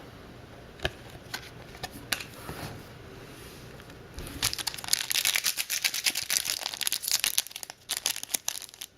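A few light taps, then from about four seconds in a dense, rapid crinkling of trading-card packaging being handled.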